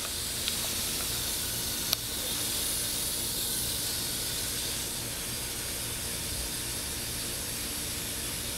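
Garden hose pistol-grip spray nozzle spraying water: a steady hiss of the spray. A single sharp click about two seconds in.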